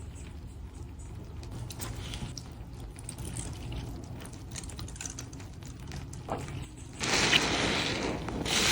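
Soapy, foam-filled sponge with faint wet crackles and small squelches, then about seven seconds in a loud squeeze with suds and water gushing out.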